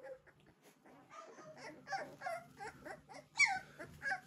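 A litter of three-week-old American Bully puppies whimpering and squealing: many short, high calls overlapping. The loudest is a falling whine about three and a half seconds in.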